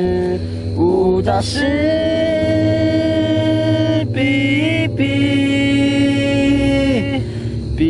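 Singing in long drawn-out phrases: each note is held for a second or more and then slides to the next, over a steady low hum.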